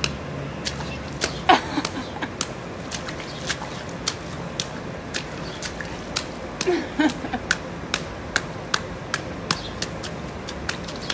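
Quick light slaps of a hand on pool water and wet skin, in a steady run of about three a second.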